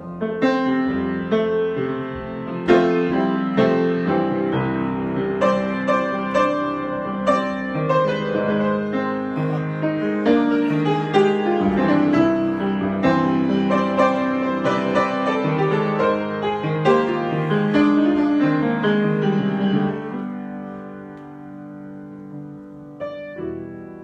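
Grand piano played solo in an improvisation: a busy, loud stretch of many notes and chords, growing softer about twenty seconds in and thinning to a few quiet notes near the end.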